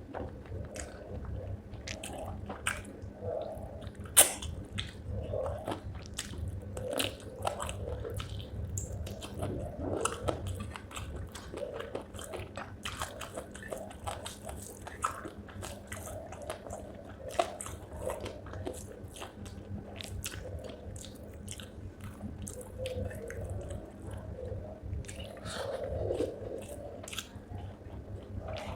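Close-miked chewing and biting on chicken feet curry with rice: wet, irregular crunches and squelches of cartilage and small bones, with a sharp crunch about four seconds in.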